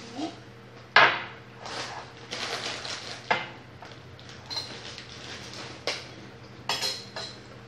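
Kitchenware being handled on a counter: a cup, bottle and plastic bowl knocked and set down, with clinks and clatters, the loudest about a second in and several more spread through. A faint steady hum runs underneath.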